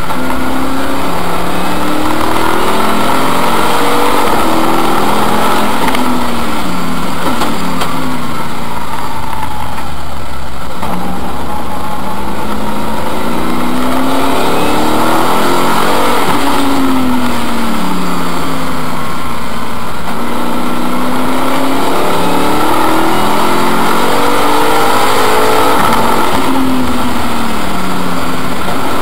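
BMW race car engine at racing speed, heard from inside the stripped cabin, its revs climbing and dropping again and again as it shifts through the gears and slows for corners.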